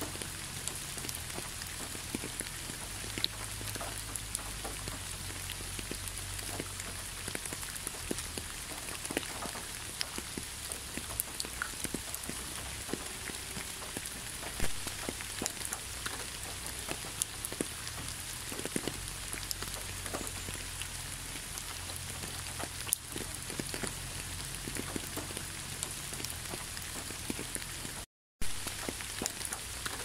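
Steady rain falling, a continuous hiss with many distinct drop ticks scattered through it. The sound cuts out for a split second near the end.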